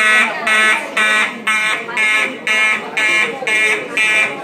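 Simplex 4903-9219 fire alarm horn/strobe sounding the evacuation signal: a loud, buzzy electronic horn tone in even blasts about two a second.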